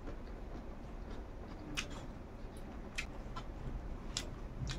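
A person eating rice by hand close to the microphone: scattered soft clicks, about five of them, from chewing and fingers working the rice, over a low steady hum.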